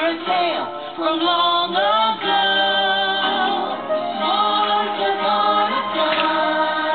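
A song with several voices singing together over instrumental backing.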